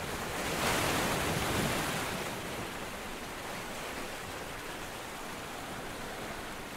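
Steady rushing outdoor noise, even and hiss-like, that swells to a peak about a second in and then holds steady.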